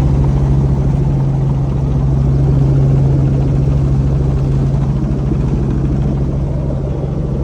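Helicopter running steadily: a loud, even engine drone with a fast rotor beat.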